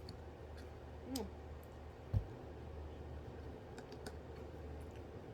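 Faint scattered clicks of someone eating over a steady low room hum, with a short falling tone about a second in and a single dull thump just after two seconds.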